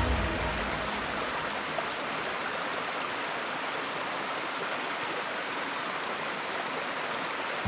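Steady rushing of a rocky mountain stream, with white water tumbling over boulders. The end of a piece of music fades out in the first half second.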